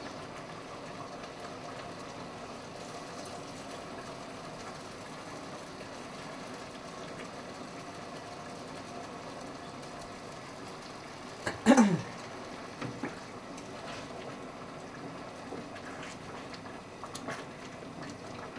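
Steady low hiss of pans simmering on a gas stove, with small clinks of a utensil against the pans. About two thirds of the way through, one short, louder clank that drops in pitch, followed by a couple of light knocks.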